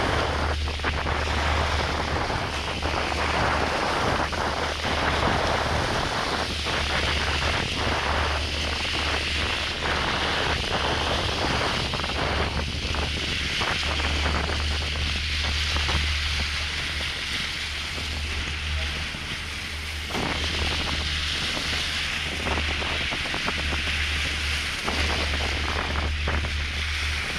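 Boat underway on open sea: wind buffeting the microphone with an irregular rumble over a steady low engine drone and water rushing past the hull.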